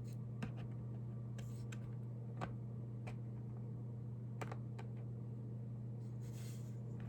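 Sparse, light clicks of a small hand tool and plastic and metal parts while the adjustable steering tie rods of an RC car are being adjusted, about five ticks over a few seconds, over a steady low hum.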